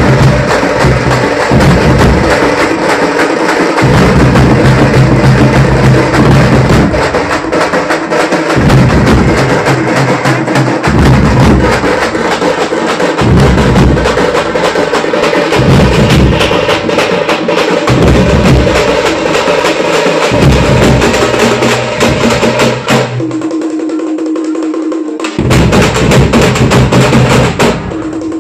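Tamate frame drums and other drums played loudly in a fast, driving rhythm. The deep drums drop out for about two seconds near the end, then come back briefly.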